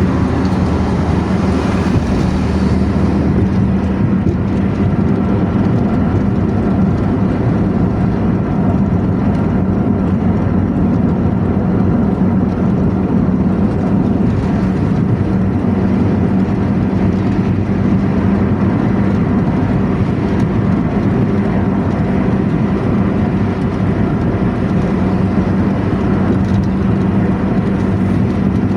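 Bus running with a 'knalpot ngorok' snoring exhaust, an aftermarket exhaust tuned to rumble: a steady, deep, unbroken drone as it cruises at an even speed.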